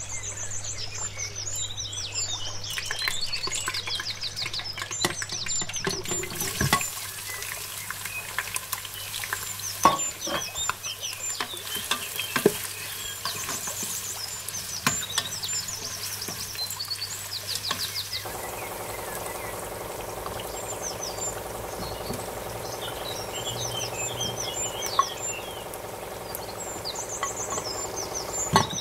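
Onions being stirred with a wooden spoon in oil in an electric pressure cooker's inner pot, with a few sharp knocks of the spoon against the pot, over a steady low hum. Birds chirp in the background throughout. A steadier noise sets in about two-thirds of the way through.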